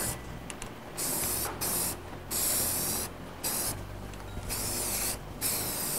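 Aerosol spray-paint can spraying gray primer in repeated short bursts of hiss, each lasting about half a second to a second, with brief pauses between them.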